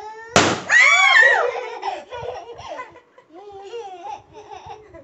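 A balloon, blown up by mouth until it bursts, pops loudly about half a second in. Shrieks and laughter follow right after.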